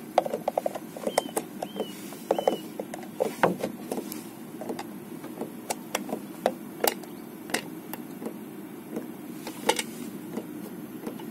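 Chinese Webasto-type diesel air heater running, its blower fan giving a steady low hum. Irregular clicks and knocks from a screwdriver and hands working on a plastic junction box and foam packing around the heater, with a few short squeaks in the first seconds.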